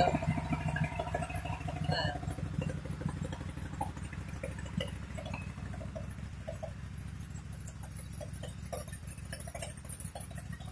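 Honda Gold Wing trike's flat-six engine idling steadily, slowly easing a little in level.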